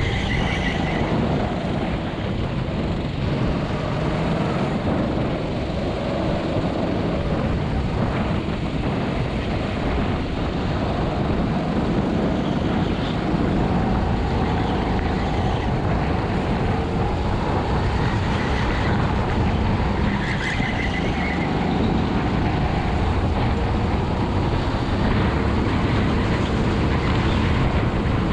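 Honda GX200 single-cylinder kart engine running steadily as the kart drives.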